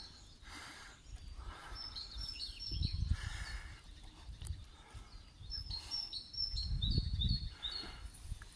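Small birds chirping in short, high tweets: a few about two seconds in and a longer run near the end. A low rumble comes and goes beneath them.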